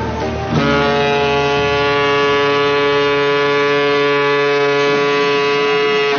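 A ship's whistle sounding one long, steady blast at a single pitch. It starts about half a second in and cuts off suddenly at the end.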